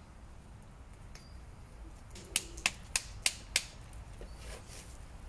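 Farrier's hammer striking during the shoeing of a horse's hoof: five quick, sharp taps about a third of a second apart, starting about two seconds in.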